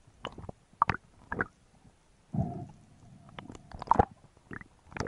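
Underwater handling noises of a speared fish held on a speargun shaft: a string of sharp clicks and knocks, with a short low rumble about two and a half seconds in.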